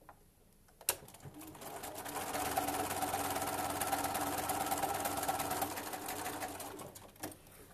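Electric sewing machine stitching a seam: a click about a second in, then the motor winds up to a steady, rapid run of needle strokes that slows and stops near the end.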